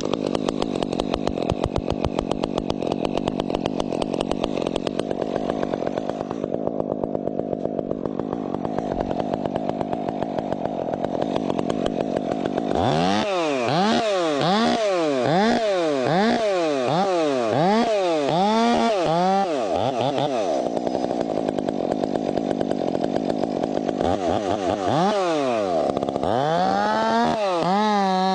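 Two-stroke chainsaw running, used for cutting wood. Its engine runs steadily for the first twelve seconds or so, then its revs rise and fall over and over, and it settles on a high steady rev near the end.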